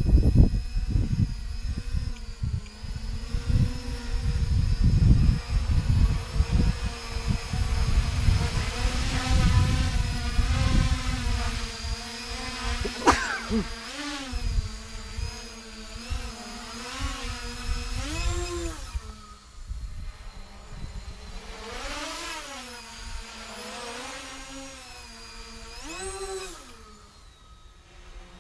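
Mini tricopter's brushless motors and propellers whining, the pitch swooping up and down again and again as the throttle changes, with one sharp upward glide about halfway through. Wind buffets the microphone through the first dozen seconds.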